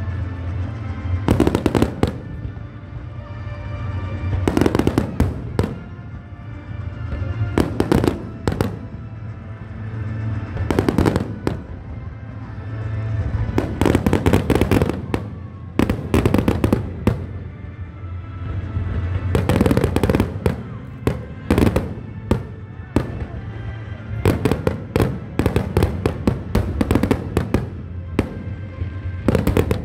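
Fireworks display bursting in volleys every few seconds, single bangs and quick clusters of crackling reports, with a fast run of bangs near the end. Steady music plays underneath.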